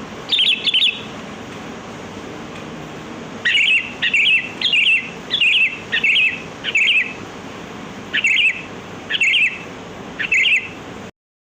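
Sooty-headed bulbul calling in short, bubbly phrases: one near the start, then about nine in quick succession. The sound cuts off abruptly near the end.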